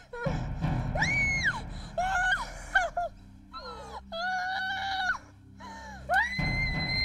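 A girl screaming and crying out in terror, several high-pitched screams and wails, the longest held near the end, over a low, dark music bed.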